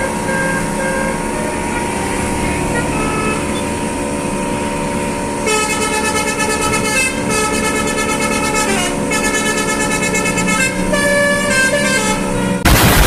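A Basuri telolet horn on a car playing a multi-note melody over running engine and traffic noise, with a few faint notes at first and loud, clear notes from about five seconds in. A loud rush of noise cuts in at the very end.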